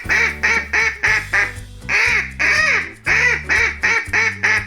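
Duck quacking repeatedly in quick runs of short, nasal quacks, about four a second, over cheerful backing music.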